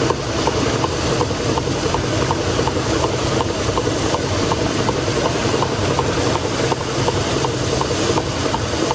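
Steam launch's 1902 Toledo steam carriage engine running steadily, with a light, regular tick about twice a second over a steady rumble.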